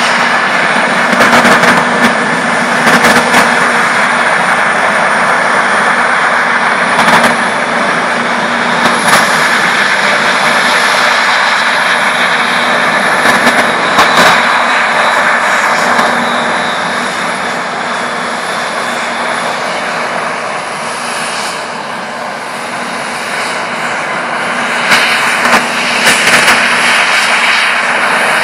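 New Holland CR9090 combine harvester running at full work, cutting wheat and unloading grain on the move, with a JCB Fastrac tractor and trailer running alongside: a loud, steady machinery drone with a high whine over it. A few brief bumps break through, and it eases slightly for a few seconds past the middle.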